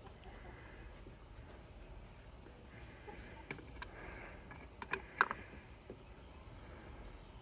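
Faint outdoor background with insects, broken by a few light clicks and knocks of hand work on the outboard's oil filter, the loudest a little before the middle.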